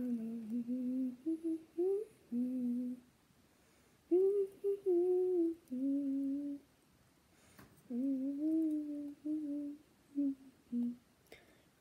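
A person humming a tune in short melodic phrases, with two brief pauses between phrases.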